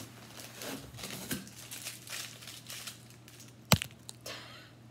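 A cardboard shipping box being opened by hand: paper and packaging crinkling and tearing in short scrapes, with one sharp click about three and a half seconds in.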